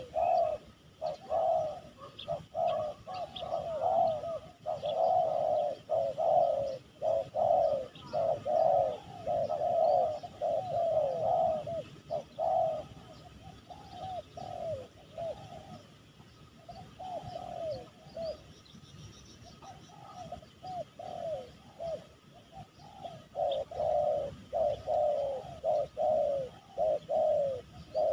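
Spotted doves cooing, phrase after phrase of short, drooping coos, thick at first, thinning out in the middle and crowding in again near the end.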